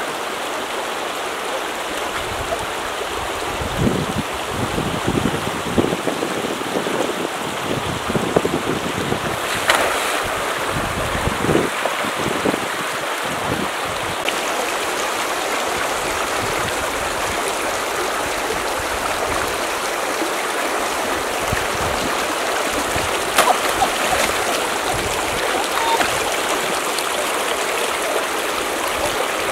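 Shallow river running fast over stones, a steady rushing of water. Irregular splashes of feet wading through it come mostly in the first half.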